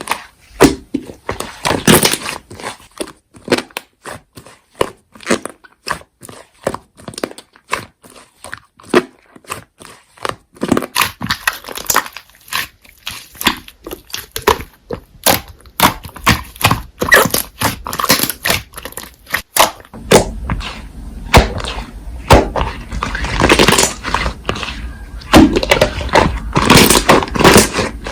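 Slime being pressed and squished by hand: a run of irregular sticky clicks and pops, denser and fuller for the last third.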